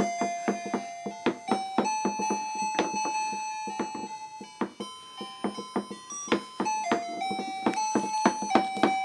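Background music: a light keyboard tune in a piano sound, with quickly struck notes and some held tones.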